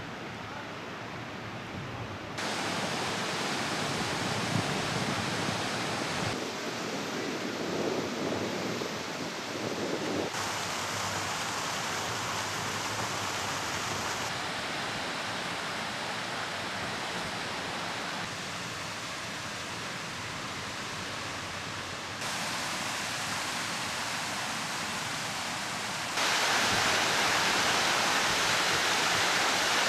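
Water fountains splashing, a steady rushing hiss that changes abruptly every few seconds from one shot's sound to the next and is loudest near the end.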